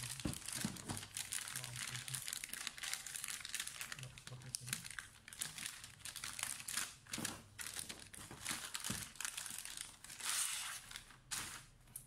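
A thin plastic protective sleeve crinkling and rustling as a laptop is unwrapped and pulled out of it by hand, in irregular crackles with a louder stretch about ten seconds in.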